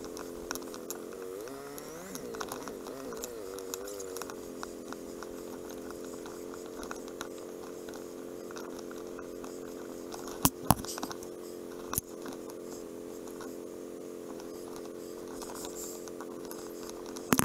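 Motorcycle engine running at low speed in slow town traffic, a steady drone whose pitch wavers up and down briefly about two seconds in. A few sharp knocks are heard about two-thirds of the way through and again near the end.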